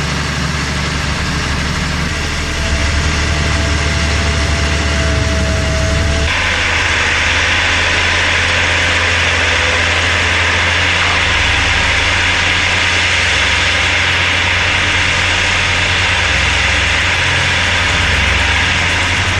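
Forestry forwarder carrying a mobile baling press, its diesel engine running steadily. A steady whine sounds from about three to six seconds in; then the sound changes suddenly to a lower engine note with a loud, even hiss over it.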